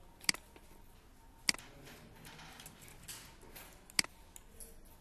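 Three sharp, single computer mouse clicks, spaced unevenly over a quiet background.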